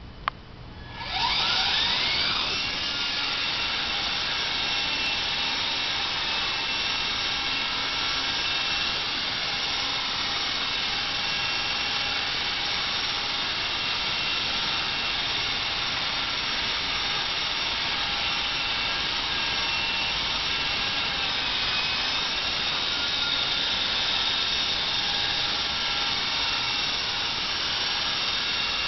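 Small electric Honey Bee RC helicopter spooling up with a rising whine about a second in, after a sharp click, then running with a steady high motor-and-rotor whine as it hovers and flies.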